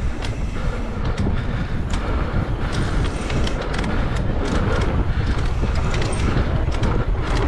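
Wind rushing over the microphone and tyres rolling over a dirt trail, with frequent short knocks and rattles from the mountain bike going over bumps.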